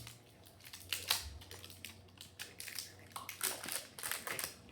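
Thin plastic wrap crinkling and crackling as it is peeled off a Mini Brands capsule, in clusters of sharp crackles about a second in and again near the end.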